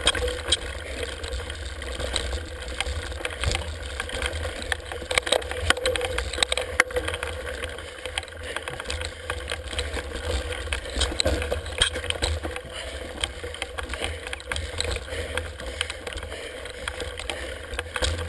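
Mountain bike climbing over roots and rock, heard through a handlebar-mounted camera: a steady low rumble with frequent clicks and rattles as the bike jolts on the rough trail.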